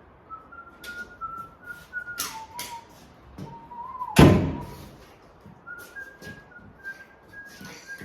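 A man whistling a simple tune through his lips, single notes held and stepping up and down in pitch, with a few light clicks. A loud thump about four seconds in.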